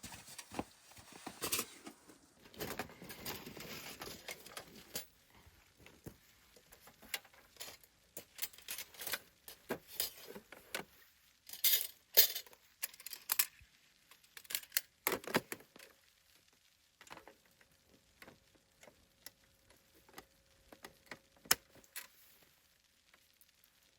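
Scattered clinks, clicks and knocks of small hard objects being handled, with a short rustling stretch about three seconds in.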